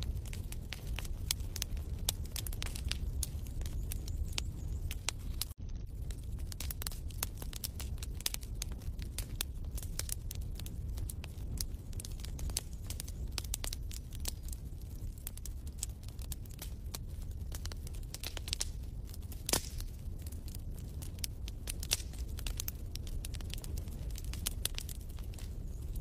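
Wood fire crackling in a fireplace: irregular sharp pops and snaps over a steady low rumble. It cuts out briefly about six seconds in.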